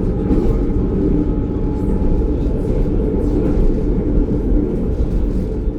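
Narrow-gauge electric train running at speed: a steady low rumble from the wheels and running gear, with a faint steady whine above it.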